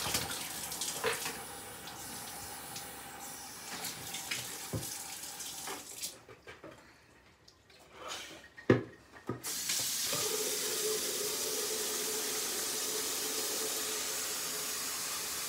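Water splashing and sloshing out of a plastic bucket into a sink, with a few knocks of the bucket, then a short quiet spell. About ten seconds in, a kitchen tap comes on and runs steadily into the bucket, filling it.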